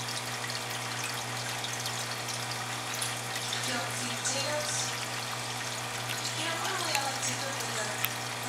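Aquarium water bubbling and trickling from an air stone: a steady, even hiss over a constant low hum.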